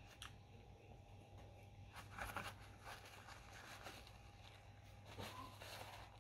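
Near silence with a low steady hum, broken by a few soft rustles of a paper napkin being unfolded and wiped across the mouth, about two seconds in and again near the end.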